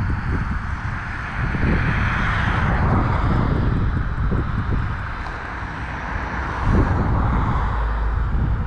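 Outdoor street traffic noise with wind rumbling on the microphone. A vehicle swells past about two to three seconds in.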